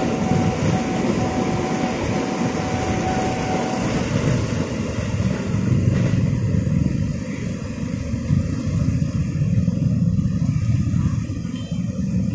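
A KRL Commuter Line electric train's last cars run past over the level crossing, the rail noise dying away over the first several seconds. After that, the low rumble of many waiting motorcycles idling and revving takes over.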